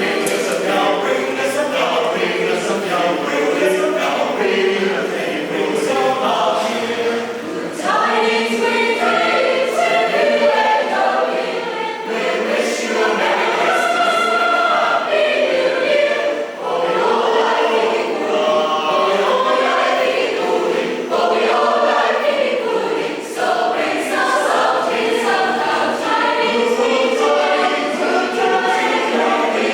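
A choir singing, several voices in harmony in a continuous passage with brief dips between phrases.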